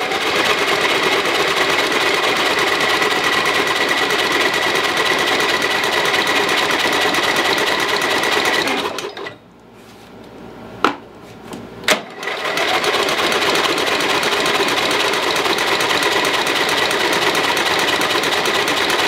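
A 14 hp riding-mower engine cranked over by its electric starter with the choke on, in two long bursts of about nine and seven seconds with a short pause and two clicks between them. It turns over steadily without catching, a no-start that the owner puts down to the engine getting way too much fuel.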